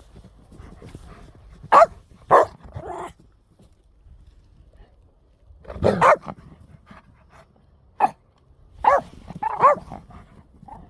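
Dog barking in short, sharp barks: two about two seconds in, a cluster around six seconds, and several more near the end. Playful barking, the dogs excited and running around in fresh snow.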